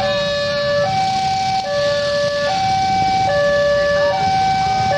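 Railway level-crossing warning alarm sounding an electronic two-tone signal, high and low notes alternating about every 0.8 seconds. A low rumble of waiting motorcycle traffic runs beneath it.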